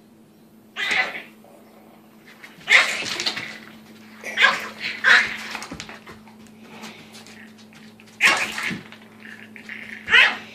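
A puppy barking and growling in about six short outbursts, sharp and high-pitched: food-guarding aggression aimed at a larger dog approaching its bowl.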